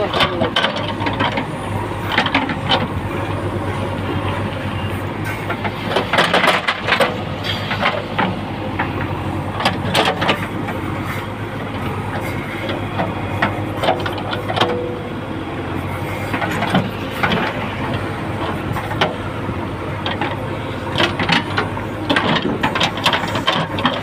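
JCB 3DX backhoe loader's diesel engine running steadily under load while the backhoe bucket digs into soil, with sharp knocks and scrapes of the bucket against earth and stones at irregular moments.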